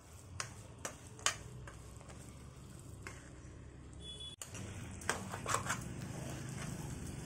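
A spoon stirring grated raw mango cooking in a pan, with a few sharp clicks and scrapes of the spoon against the pan: three in the first second and a half and a cluster a little after five seconds. A low steady hum runs underneath.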